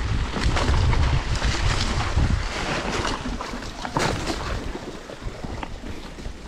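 Wind buffeting the microphone of a mountain biker's camera while riding downhill on a dirt trail, with tyre noise and scattered rattles and knocks from the bike over bumps. The wind rumble eases after about two and a half seconds.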